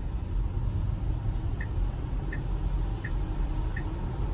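Steady road and tyre rumble inside a Tesla Model Y's cabin on a wet road. From about a second and a half in, a turn-signal indicator ticks evenly, about once every 0.7 seconds.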